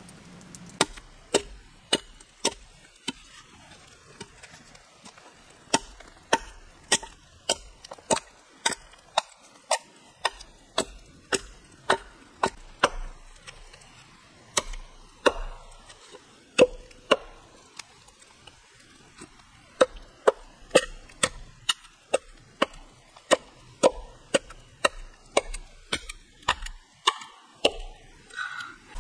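Repeated sharp chops of a blade biting into a wooden log, about one to two strikes a second, with a couple of short pauses.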